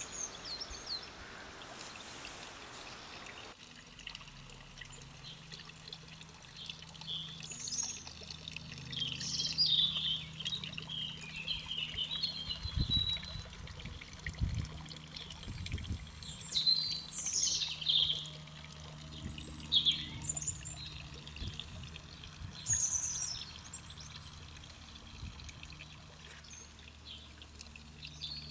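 Garden songbirds singing, with many short chirps, trills and whistled phrases, busiest in the middle stretch. An even rushing noise fills the first few seconds and cuts off suddenly, and a faint low steady hum runs underneath.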